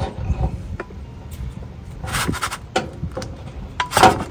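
Metal clinks and knocks as a brake caliper is worked off the disc and set aside, the loudest about two seconds in and near the end, over a low rumble.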